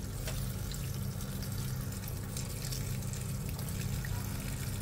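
Tap water running in a steady stream onto dried leaves in a stainless steel colander in a sink, as the leaves are rinsed. A steady low hum sits underneath.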